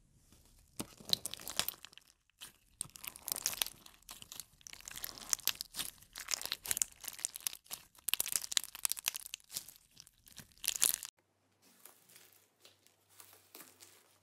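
Clear slime packed with pink plastic pearl beads being squeezed and kneaded by hand, making dense crackling, clicking and crinkling noises in repeated squeezes. About eleven seconds in this gives way to faint, soft squishing as green fluffy slime is pressed.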